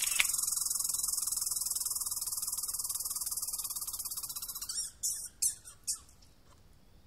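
A long, rapid, high-pitched buzzing trill that fades over its last seconds and stops a little under five seconds in, followed by three short chirps. A sharp click sounds just after the start.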